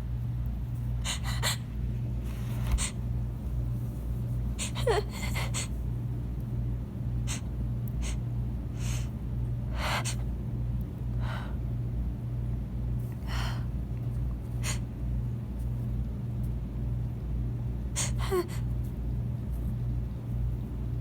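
Sharp, gasping in-breaths and sniffs of a sneeze building up and being held back, about a dozen spread across the stretch. Twice a brief falling vocal catch comes with them. A steady low hum runs underneath.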